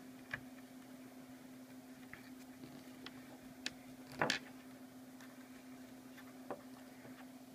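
Faint handling clicks as fingers work a rubber washer down the threaded metal stud of a GoPro sling mount: a few scattered small clicks, the loudest about four seconds in, over a steady low hum.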